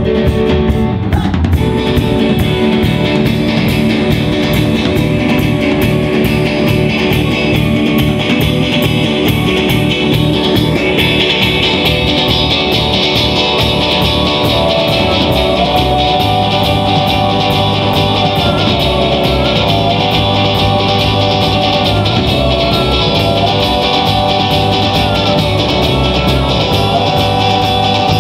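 Live indie rock band playing a loud instrumental passage on electric guitars, electric bass and drum kit, with a steady cymbal wash. A held melody line of long notes that slide between pitches comes in about halfway.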